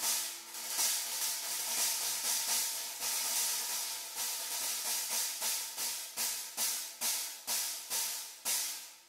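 A cymbal stack, a Kingdo 12-inch Artist Dark Medium Splash sitting on a 16-inch KEC O-zone China, struck repeatedly with drumsticks: short crashes, bright and hissy, in a steady beat of about two or three hits a second. The last hit dies away quickly near the end.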